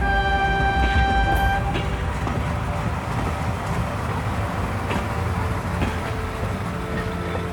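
A train horn sounds one toot of about a second and a half, over the steady rumble of a running train.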